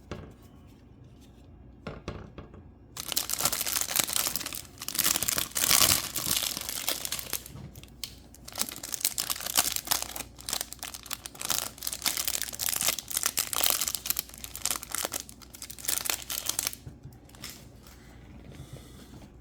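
Wrapper of a 1987 Donruss baseball card rack pack being torn open and crinkled, a dense crackling that starts about three seconds in, is loudest a few seconds later and dies away near the end.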